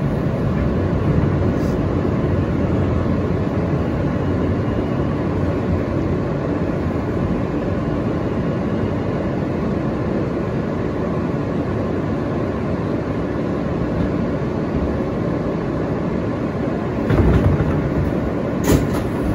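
Interior noise of an R160A-2 New York subway car running along the track: a steady rumble of wheels on rail and running gear, with a couple of brief knocks near the end.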